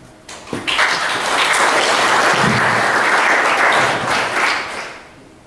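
Audience applauding: it starts abruptly just after the opening, holds steady for about four seconds, then dies away near the end.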